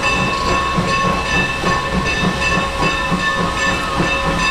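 Steam locomotive coming slowly into the station, hissing steam with a low pulsing beat about two or three times a second and a steady high tone over it.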